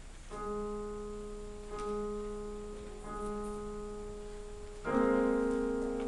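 Piano played slowly, note by note: the same note struck three times about a second and a half apart, then a higher, louder note near the end, each left to ring and fade.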